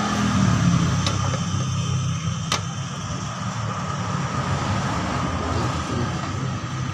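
Steady low machine hum, with two sharp metallic clicks about one and two and a half seconds in as a socket and extension are worked on the rear engine-mount bolt.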